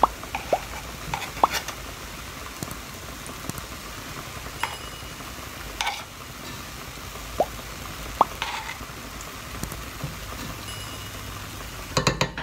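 Quiet cooking sounds from a pot of hot flour halwa with ghee melting on it: scattered small pops and clicks with a few short pings. Near the end comes a quick run of clicks as a metal spoon scrapes ghee against the pot.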